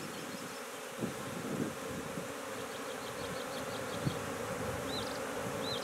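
A swarm of honey bees buzzing steadily in a low hum as a frame covered in bees is worked over a nuc box. Short high chirps sound in the background about halfway through and twice near the end.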